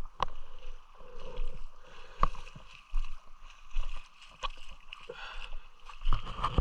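River water splashing and sloshing close by, broken by several sharp knocks.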